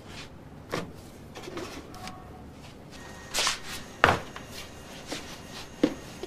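Baker handling a large block of bread dough at a wooden workbench: a few scattered soft knocks and thumps, the loudest about four seconds in.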